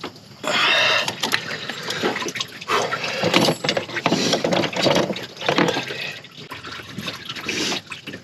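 Engine coolant pouring and splashing unevenly into a drain pan, with a few sharp clicks of handling among it.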